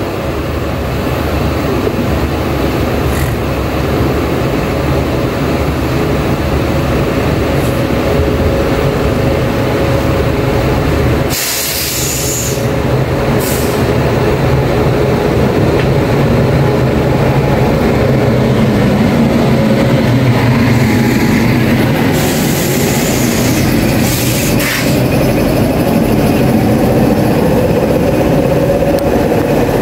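Indian Railways express train, led by a WAP-7 electric locomotive, passing slowly at close range: a loud, steady low rumble of the locomotive and rolling coaches. Short bursts of high hiss come about twelve seconds in and again between about 22 and 25 seconds in.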